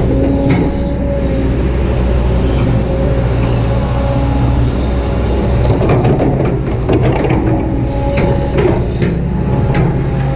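Kobelco SK200-8 excavator's diesel engine running steadily under load, with a steady high hydraulic whine over it. A series of sharp knocks comes between about six and nine seconds in.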